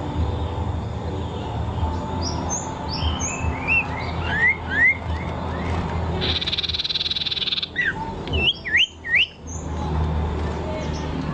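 Songbird calling: a run of short, sharp upward-sweeping whistled notes, a buzzy trill about six seconds in, then more quick rising notes, over a steady low rumble.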